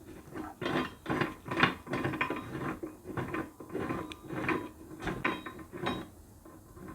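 Irregular clicking and clattering of small hard objects being handled, several knocks a second, which dies away near the end.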